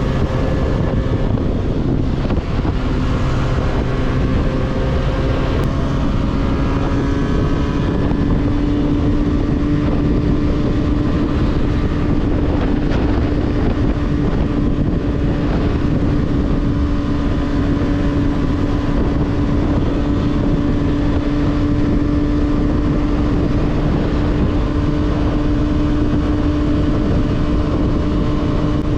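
300 cc motorcycle with an aftermarket 302s exhaust, ridden at a steady cruise: the engine note rises slightly in the first few seconds, then holds level. Wind rushes over the microphone.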